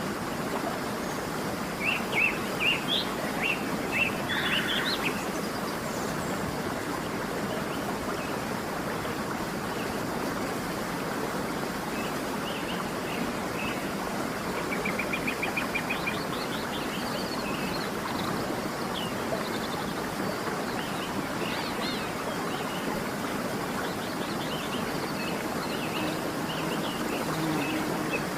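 Steady rush of a waterfall, with small birds chirping over it: a cluster of short chirps a few seconds in, a quick trill around the middle, and scattered calls later on.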